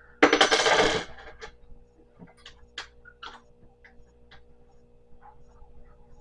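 Small metal pieces jingling and rattling together for under a second, then scattered light clicks and taps as parts of a flat-pack stand are handled.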